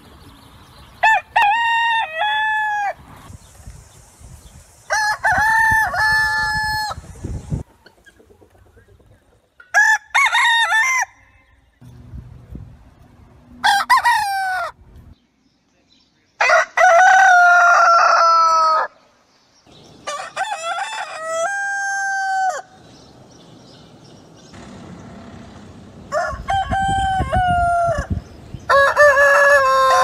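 Roosters crowing one after another, about eight cock-a-doodle-doos in all, each a loud pitched call lasting one to three seconds, from several different roosters.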